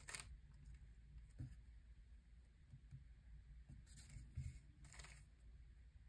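Faint plastic clicks and scrapes of a stickerless 3x3 Rubik's-style cube being turned and regripped by hand, in a few short bursts: one at the start, one about a second and a half in, and two more around four and five seconds in.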